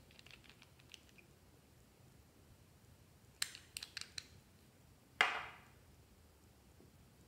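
Small hard-plastic clicks and taps from figure-shaped novelty nail polish bottles and their caps being handled: a few faint clicks at first, a quick run of sharp clicks about three and a half seconds in, and one louder knock a little past five seconds.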